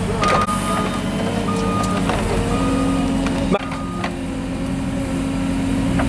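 Backhoe loader's diesel engine running under load as its arm lifts a tree out of the ground, with a reversing alarm beeping at intervals in the first two seconds. A single sharp knock comes about three and a half seconds in.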